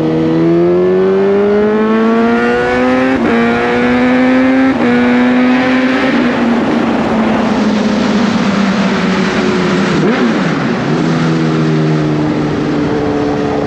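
Suzuki GSX-S1000's inline-four engine accelerating through the gears, its pitch climbing and dropping back at two upshifts in the first few seconds. Wind rushes over the microphone in the middle, then the engine note dips and rises again about ten seconds in before running steadily.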